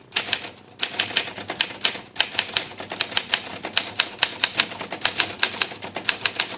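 1954 Olympia SM3 manual portable typewriter typed on at speed: a quick run of sharp typebar strikes, about five or six a second, with brief pauses between words. It is a very quiet machine, here without a felt pad underneath.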